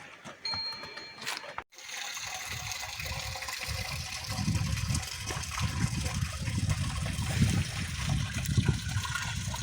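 Rain falling steadily, with a deep rumble that comes and goes from about four seconds in.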